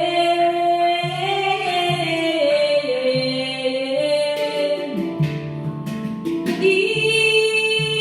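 Celtic-style song: a woman's voice holding long notes that slide between pitches, over a low, steady accompaniment.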